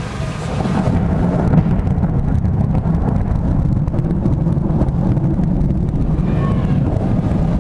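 Deep rumble of thunder that swells about a second in and rolls on steadily, following a lightning strike taken for a cloud-to-ground strike.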